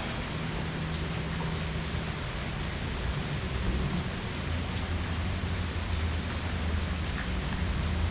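Steady rain falling, an even hiss with scattered drop ticks, over a low steady hum that grows louder toward the end.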